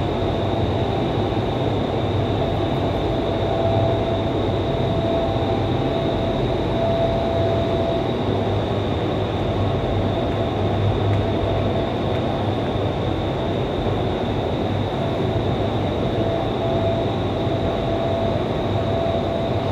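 Vertical wind tunnel for indoor skydiving running at flying speed: a steady, loud rush of air from its fans with a constant high whine.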